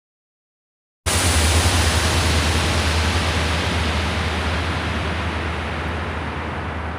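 Digital silence for about a second, then a sudden wash of hiss-like synthesized noise over a steady low hum, slowly fading. It is the electronic noise intro to the next track of a gothic metal album, just before the beat comes in.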